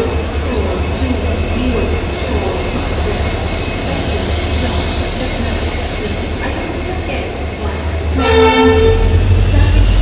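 WDP4D diesel-hauled passenger train rolling past with a low engine rumble and a steady high-pitched wheel squeal. A short locomotive horn blast comes about eight seconds in, after which the squeal rises in pitch and the rumble grows louder.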